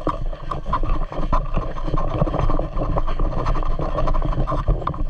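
Close rustling and scraping with many small irregular knocks, like clothing and gear rubbing against a body-worn camera microphone as the wearer moves.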